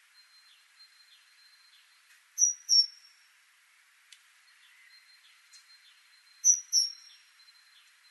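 Great tit singing: two loud, high two-note phrases, about four seconds apart, each note clear with a short falling tail. Underneath are faint, quick repeated chirps and a thin steady high buzz.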